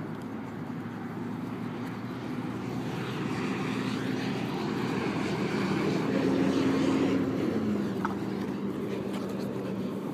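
A passing engine drone that slowly grows louder, then drops in pitch about seven and a half seconds in and fades.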